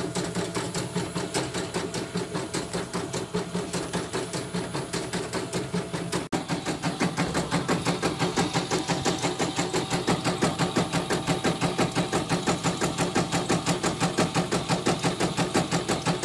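CNY E900 embroidery machine stitching a test design, its needle going up and down in a fast, even rhythm, with a momentary dropout about six seconds in. It runs smoothly, with no thread breaks.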